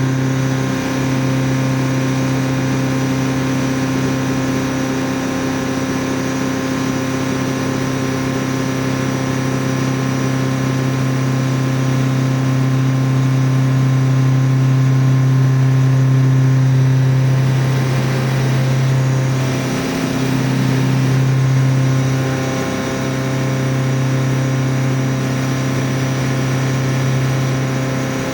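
CNC mill profile-cutting Elmax powder steel, the end mill peeling the blank at 3600 RPM with a steady, loud humming tone and a whine above it. The tone dips briefly twice in the second half.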